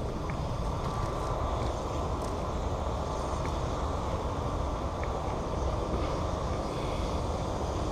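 Steady wind rumble buffeting the camera microphone, with a few faint ticks.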